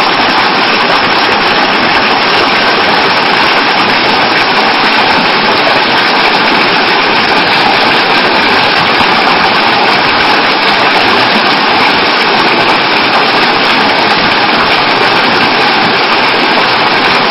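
Loud, steady rush of water gushing out at a spring, an even hiss with no pitch to it, cutting off suddenly at the end.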